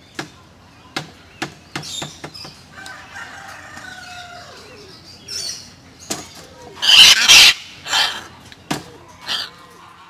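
Military macaws giving harsh, loud squawks, the loudest about seven seconds in and shorter ones near eight and nine seconds, from birds agitated by the work on their cage. Several sharp clicks and knocks come in the first couple of seconds.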